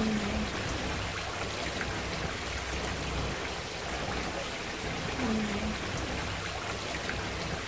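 Decorative garden water fountains running: water falls over cascade tiers into basins with a steady splashing trickle.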